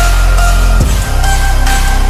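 Background music with a heavy deep-bass beat and held synth notes.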